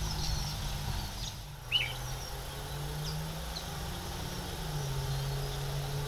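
Scattered short bird chirps, one louder chirp about two seconds in, over a steady low engine hum that shifts pitch a couple of times.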